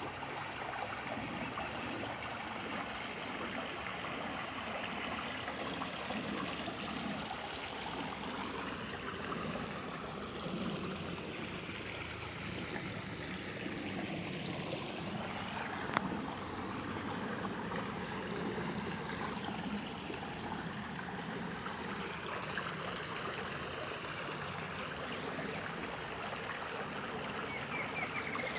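Forest river flowing steadily, a constant rush and trickle of water. A single sharp click sounds about halfway through.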